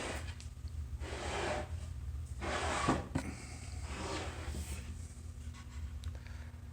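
A wooden box and its lid being handled and turned, with soft rubbing and scraping of wood on wood and a light knock about three seconds in, over a steady low hum.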